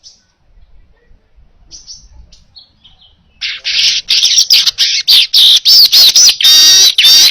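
Manyar weaver bird singing: a few faint short chirps, then from about halfway in a loud, rapid, unbroken song of buzzy trills and quick up-and-down whistled sweeps.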